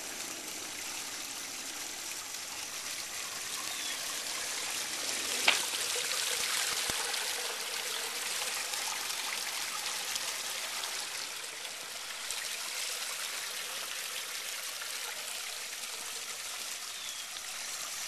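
Small pondless waterfall: water spilling from an opening in a dry-stacked stone wall and splashing onto a bed of river rock, a steady trickle and splash. A single sharp click about five and a half seconds in.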